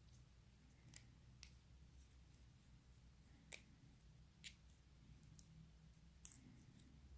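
About six faint, sharp clicks of small screws and a precision screwdriver being worked on an iPhone 6 during disassembly for a screen replacement, the sharpest about six seconds in, over a low steady hum.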